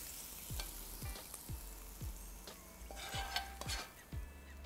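Hot butter and pan juices sizzling and crackling as they are poured from a frying pan over a seared chicken in a roasting tray, with a cluster of louder crackles about three seconds in.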